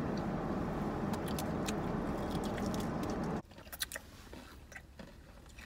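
People chewing and lip-smacking on fried chicken, with small wet mouth clicks, over a steady rushing noise that cuts off suddenly about three and a half seconds in.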